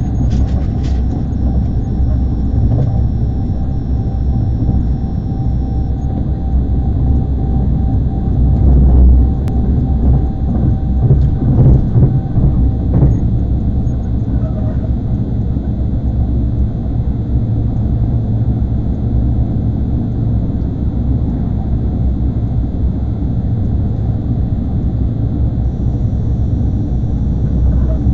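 ICE high-speed train running at speed, heard from inside the passenger car: a steady low rumble, with a few brief louder knocks near the middle.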